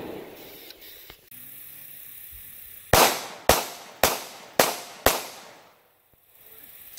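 Five pistol shots fired in quick succession, about half a second apart.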